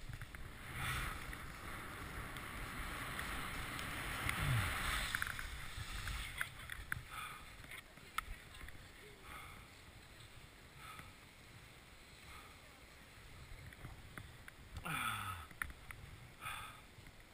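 Skis sliding and scraping over packed snow, with wind noise on the helmet camera's microphone. The sound is loudest for the first few seconds, then eases off to softer, intermittent scraping. Near the end there is a short, low, falling sound.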